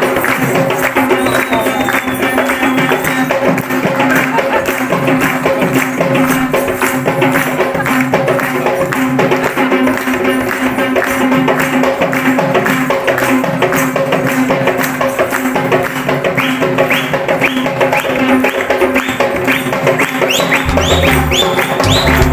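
Music with a steady held drone under dense, fast jingling hand percussion; a deep bass beat comes in near the end.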